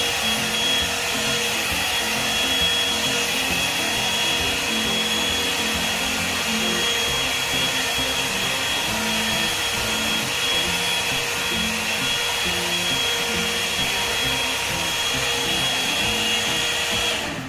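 Hot-air volumizer brush (hair dryer and styler) blowing steadily, a rush of air with a high whine, switched off near the end.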